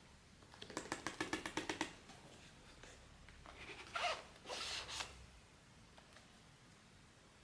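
Blind-box packaging being torn open by hand. A quick run of about ten crackling ticks comes first, then a couple of louder rips about four seconds in.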